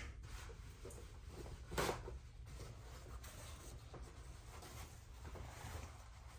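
Quiet room with faint rustling and light handling sounds over a low hum, with one brief louder rustle about two seconds in.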